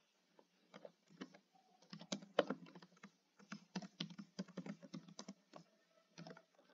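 Typing on a computer keyboard: uneven runs of short key clicks.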